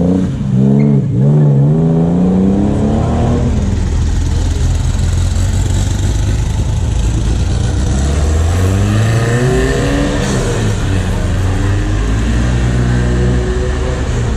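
Ford Capri's engine revved hard several times in quick rising-and-falling blips as it pulls away, fading after about three seconds. From about eight seconds in, another car's engine is heard accelerating away, its pitch rising twice.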